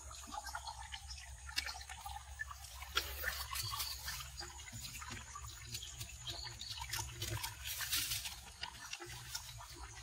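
Water trickling from a small waterfall, with many scattered small clicks and rustles over a steady low hum.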